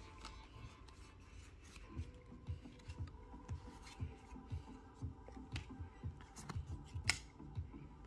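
Pokémon trading cards being slid one by one from the front of a hand-held stack to the back: soft papery rubbing and light taps, with one sharper snap about seven seconds in.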